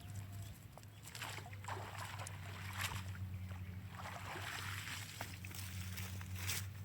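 Water sloshing and splashing in irregular bursts, over a steady low hum.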